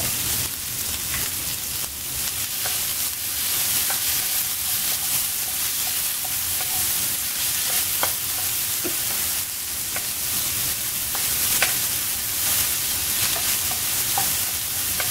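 Chopped onions sizzling in hot oil in a shallow pan while a wooden spatula stirs them, with scattered light clicks. The onions are being sautéed soft in the tempering before the other vegetables go in.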